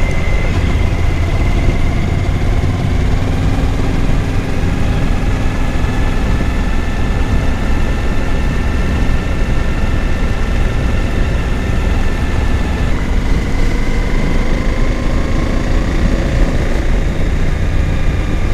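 Suzuki V-Strom 1000 motorcycle's V-twin engine running steadily while riding along, its pitch drifting slightly with small changes in speed, under continuous wind and road noise.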